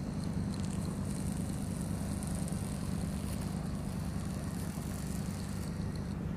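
A boat's engine running with a steady low hum, with a steady hiss of wind over the microphone.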